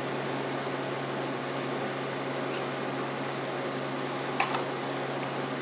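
Steady room hum, like a running fan, with two light, sharp clicks a little over four seconds in as small parts of a manual downrigger are handled and fitted during reassembly.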